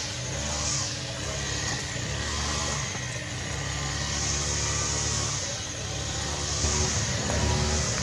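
A motor vehicle's engine running steadily, with a high hiss that swells and fades about once a second above it.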